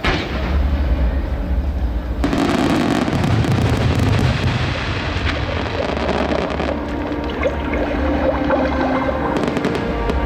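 Firework shells bursting and crackling over music. The sound starts suddenly with a boom, and crackling comes from about two seconds in and again near the end.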